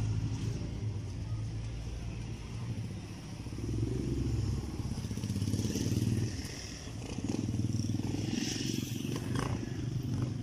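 Street background noise: a low, uneven rumble with a faint hiss that swells briefly twice.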